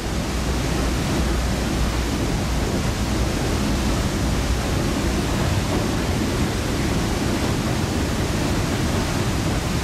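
Steady rush of water pouring over a river dam and through the rapids below it.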